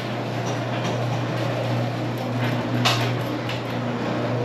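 Steady low electrical hum with an even hiss over it, and a few light knocks and rustles, one a little louder about three seconds in.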